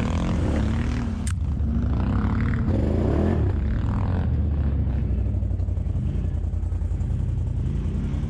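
ATV engine running at low revs as the quad crawls up a snowy trail. The revs rise and fall a couple of times in the first half, and there is one sharp click about a second in.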